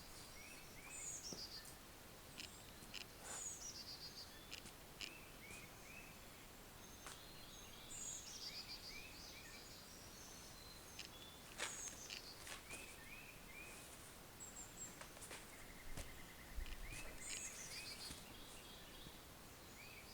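Faint birdsong: a high phrase that slides down in pitch, repeated every few seconds, over quieter short paired chirps and a brief trill, with scattered light clicks.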